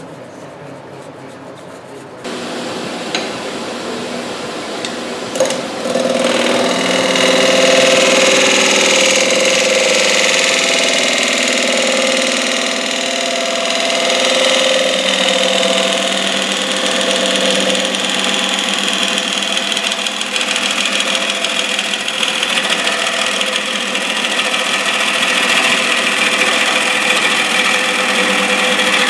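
A wood lathe running with a large wooden blank spinning. From about six seconds in, a turning tool cuts into the spinning wood with a steady cutting rasp as shavings fly off.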